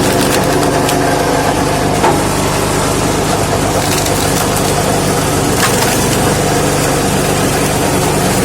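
Lifan 6.5 hp single-cylinder petrol engine running steadily, driving the screw cone of a homemade log splitter into a wet log. The wood cracks and splinters several times, loudest about two seconds in.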